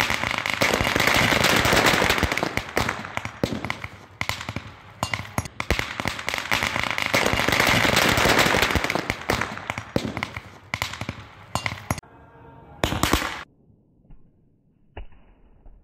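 Murga bomb firecrackers packed into a motorcycle exhaust silencer going off. For about twelve seconds there is a dense, continuous crackle of rapid bangs, then one louder burst, after which it dies away.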